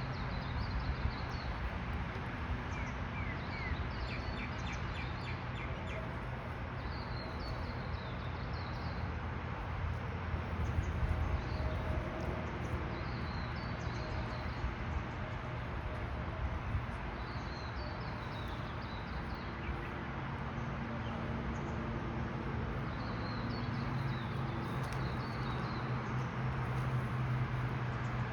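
Birds chirping in short phrases every few seconds over a steady low hum and a constant background hiss.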